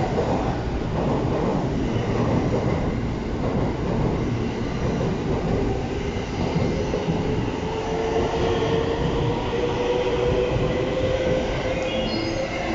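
Electric commuter train running at the platform: a steady rumble of wheels on rail, with a motor whine that rises slowly in pitch through the second half.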